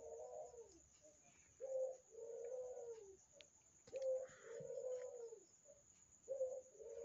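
Dove cooing: a short note followed by a longer, arched coo, repeated three times about two seconds apart.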